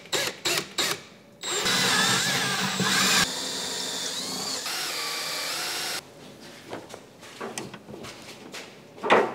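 Power drill running for about four and a half seconds, louder at first, then steadier and softer, its pitch wavering, before it stops. It is drilling holes for an over-the-range microwave's wall mounting plate. A few short bursts come in the first second, and a knock comes near the end.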